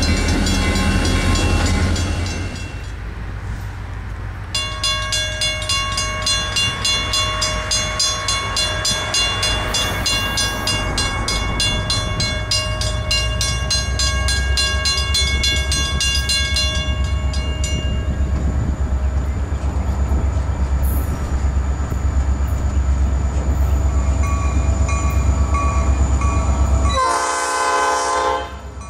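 Mechanical railroad grade-crossing bell ringing, its clapper striking in a fast, even run with the bell's tone ringing on between blows as the crossing gates come down. It opens with a few seconds of locomotives passing, and a short pitched sound comes near the end.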